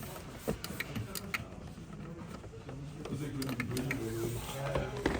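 Scattered clicks and light knocks, several across the few seconds, over a steady background murmur of voices.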